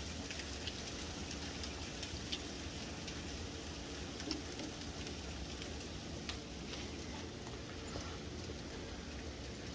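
Steady soft patter of a hailstorm, an even hiss with a few faint scattered ticks.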